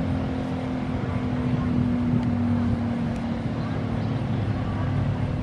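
ACA P-15 outdoor warning siren sounding a steady low tone over a low rumble, its pitch holding level without rising or falling.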